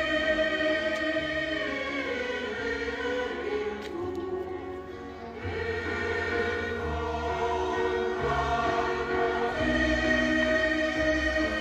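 Background music: a choir singing slow, held chords over low bass notes.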